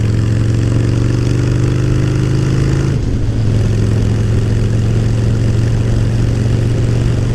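Harley-Davidson V-twin motorcycle engine running while riding at road speed, with wind noise on the microphone. The engine note climbs slowly, then steps down about three seconds in and holds steady.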